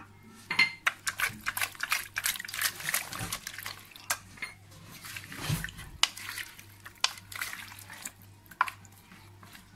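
A spoon stirring sliced potatoes and vegetables in oil and water inside an aluminium pressure-cooker pot: wet sloshing and squelching with sharp knocks of the spoon against the pot. The stirring is busiest in the first few seconds, then thins to a few separate knocks.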